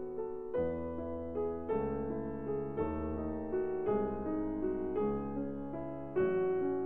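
Background piano music, with sustained chords that change about once a second.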